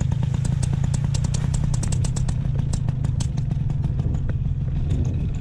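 Paramotor engine idling steadily, with a constant low hum and rapid irregular clicks over it.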